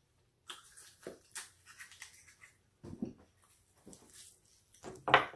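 Close-up eating and handling sounds: soft chewing and scattered small clicks and rustles as a plastic-gloved hand picks up a roasted oyster in its shell, with a louder burst near the end.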